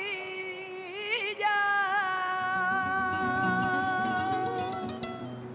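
Music: a single voice singing long held notes with wavering, ornamented turns, with lower accompaniment coming in about halfway through.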